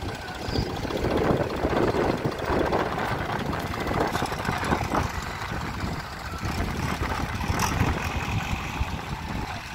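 Diesel tractor engines and a JCB backhoe loader's engine running together as the machines pull a stuck tractor and trolley, a steady low engine clatter throughout.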